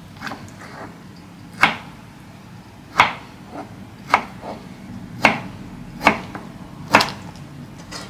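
Small kitchen knife slicing through a peeled golden kiwi and knocking on a wooden cutting board: a string of sharp knocks about once a second, some lighter ones in between.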